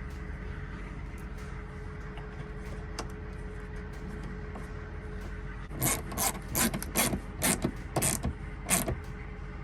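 A ratchet tool clicking in a run of about eight short rasping strokes, back and forth, as screws are driven into the headlight's plastic trim, over a steady low hum.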